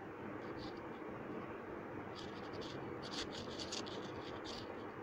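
A run of quick, light scratches on a phone touchscreen as a line is drawn on it with the annotation pen, mostly in the second half, over a steady low hiss.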